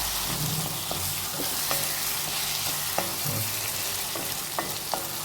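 Potatoes frying in a pan of spiced onion-tomato masala, a steady sizzle, while a spoon or spatula stirs them and knocks and scrapes against the pan several times.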